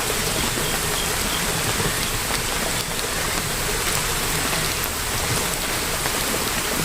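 Steady rainfall, an even hiss of rain on surfaces with scattered small drop ticks.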